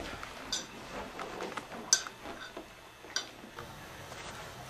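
Quiet background with three faint, sharp clicks, each about a second and a half after the last.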